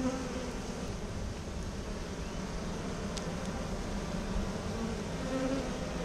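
Honeybees of a freshly hived swarm buzzing in a steady drone over the open hive box, with the hum of single bees passing close now and then.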